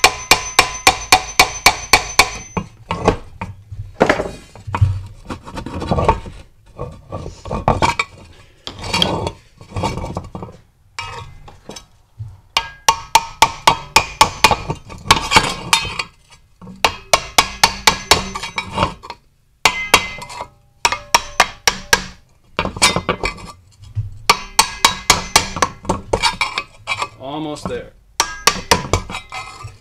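Hammer tapping a thin steel pry tool wedged under the hub ring of a Ferguson plow's steel coulter disc, to pop the ring off. The taps come in quick runs of several a second with short pauses between, and the disc rings after each strike.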